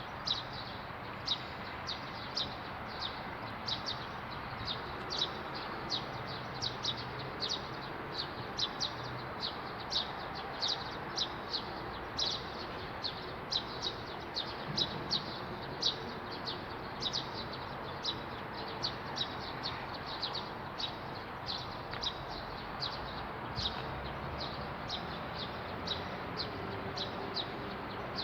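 A bird chirping over and over: short, sharp, high chirps about two or three a second, over a steady background hiss.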